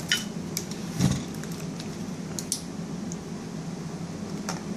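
Camera gear being handled: scattered small clicks and a light knock about a second in as a lens and caps are worked onto a Nikon D7100 DSLR body. A steady low hum runs underneath.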